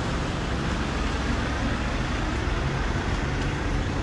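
Steady low rumble of motor vehicle noise with an even hiss over it and no distinct events.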